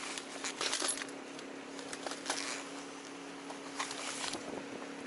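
Hands rummaging in a soft fabric tackle bag, giving rustling and small clicks and clinks from things inside. The clicks are densest in the first second and come more sparsely after that.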